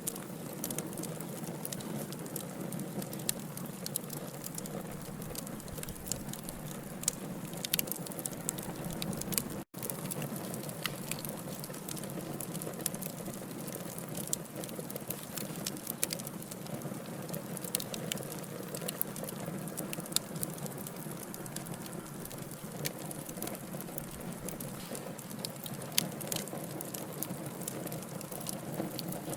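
Wood fire burning, the logs crackling with frequent sharp pops over a steady hiss.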